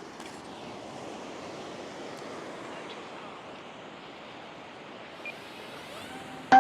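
Steady wash of ocean surf mixed with wind.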